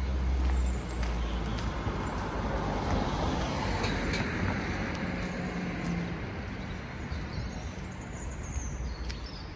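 Road traffic passing: a motor vehicle's deep engine rumble and tyre hiss, swelling to its loudest around the middle and then fading.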